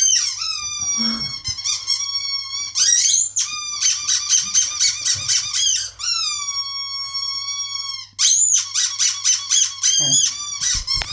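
Squeaky dog toy squeezed over and over: long drawn-out squeaks lasting a couple of seconds, sagging slightly in pitch, alternating with runs of quick rapid squeaks. A dog makes a brief low sound near the end.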